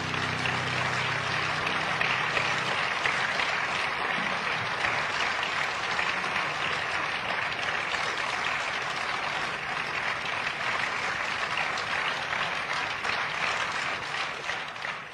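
Concert audience applauding at the end of a song, with the last piano chord still ringing underneath for the first few seconds. The applause fades away near the end.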